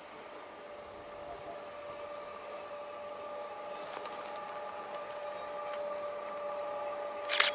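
Distant BDZ class 07 diesel locomotive approaching: a faint, steady engine whine that grows gradually louder, with one short sharp noise near the end.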